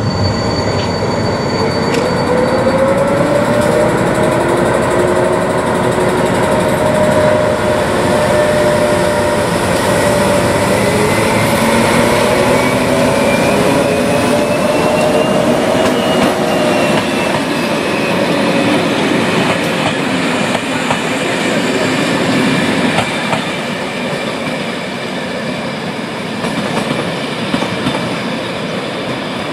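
Diesel locomotive hauling passenger coaches passing close by, with the rumble of wheels on the rails and a whining note that rises and then falls as it goes past. The sound eases a little as the coaches run on and the train draws away.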